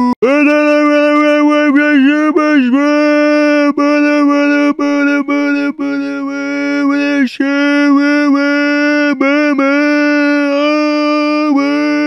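Goofy meme scream: one voice holding a single high, steady pitch, broken by frequent brief catches and little up-and-down pitch flips.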